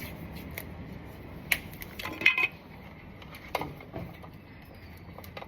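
A few light clicks and metallic clinks while wires and hand tools are handled during wiring work, the sharpest and loudest a short ringing clink a little over two seconds in.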